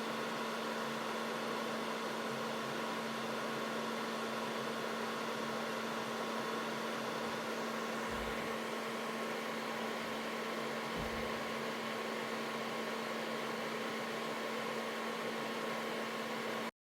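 Steady electrical hum over a hiss, with two soft low thumps a few seconds apart past the middle.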